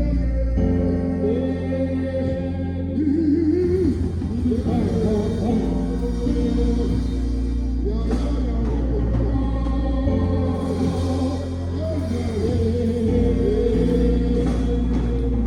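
Music: a song with a sung melody over long held chords and a steady bass.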